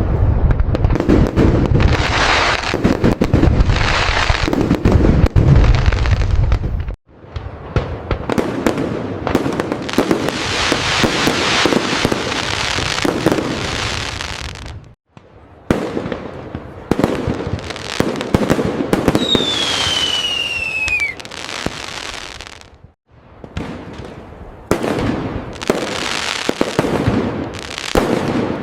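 Fireworks going off: dense, rapid bangs and crackling, in sections that cut off abruptly three times. About two-thirds of the way through, a single whistle falls in pitch over the crackle.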